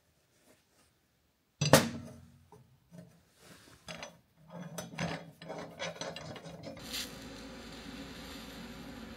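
Steel parts handled on a steel welding table: one loud metal clank with a short ring, then small clicks and rubbing as a steel protractor plate is fitted against a shaft. About seven seconds in, a steady hiss starts: a TIG welding arc tacking the plate.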